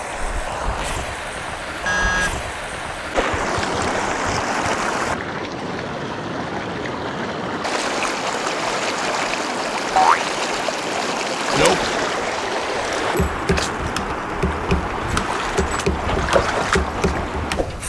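Shallow stream water running over stones, a steady rushing noise that changes abruptly a few times as clips are joined. A short rising chirp about ten seconds in, and scattered knocks and rustles in the last few seconds.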